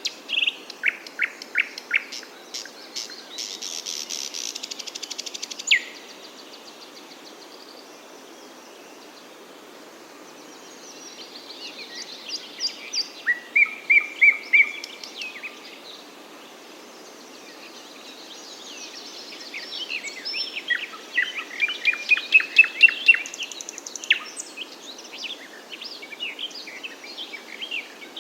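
Songbirds singing in separate phrases of quick chirps and trills, with lulls of a few seconds between them. The loudest phrase, a fast run of sharp descending notes, comes about two-thirds of the way through, over a faint steady background hiss.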